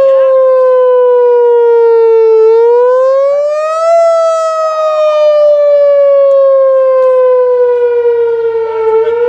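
Outdoor warning siren sounding a loud wail: one pitched tone that slowly falls, rises over about a second and a half near the middle, falls slowly again, and starts rising once more at the very end.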